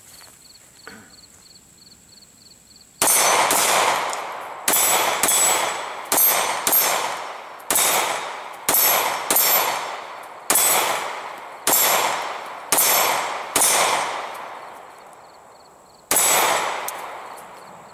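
Caracal C 9mm pistol fired about a dozen times at a steady pace, each shot followed by a ringing clang from steel targets. The shooting starts about three seconds in, with a longer pause before the last shot. Insects chirp faintly before the first shot.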